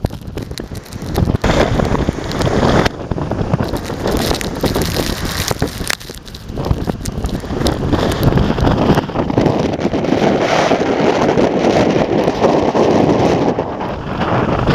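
Strong typhoon wind buffeting the microphone over the rumble of high waves breaking against the harbour quay and reef. The rush dips briefly midway, then builds louder.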